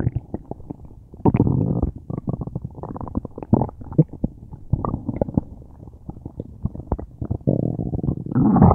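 A person's stomach gurgling loudly: a quick run of short gurgles and pops, with longer rolling gurgles about a second in and again near the end. The stomach is upset, with a tummy ache.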